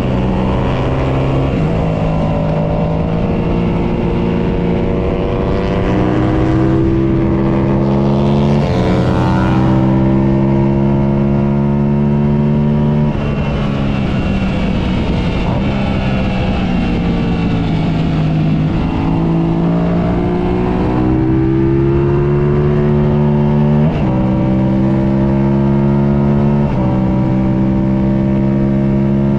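Sport motorcycle engine heard onboard at speed on a racetrack, its note rising and falling with the throttle and jumping abruptly in pitch several times as gears change, over steady wind noise.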